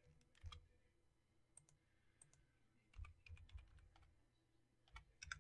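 Near silence broken by a few faint, scattered clicks of a computer keyboard and mouse.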